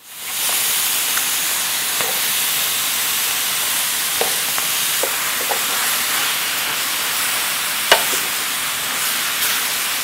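Spicy chicken and vegetables sizzling steadily in a hot skillet as they are stirred with a wooden spatula and metal tongs. A few light clicks of the utensils against the pan, and a sharper knock about eight seconds in.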